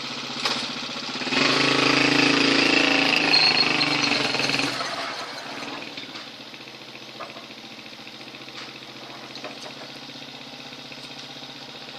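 Motorcycle engine working a home-made lifting rig: it idles, revs up with a high whine on top for about three seconds, then drops back to a steady idle, with a sharp click near the start and a few light clicks later.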